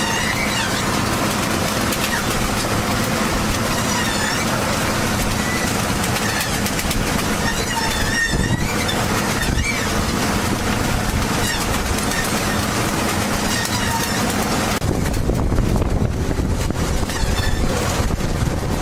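A machine's engine running steadily with a constant low hum and thin wavering high squeals. About fifteen seconds in, the sound changes to a rougher, heavier rumble.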